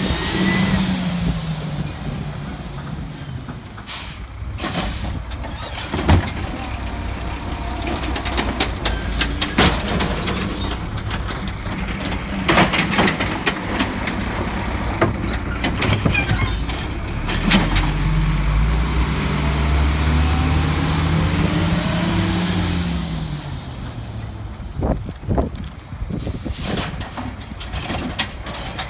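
Volvo automated side-loader garbage truck working: its engine revs up and drops back as the hydraulic arm grabs, lifts and dumps curbside carts. Sharp knocks and bangs come from the carts and arm at the hopper, with air-brake hiss.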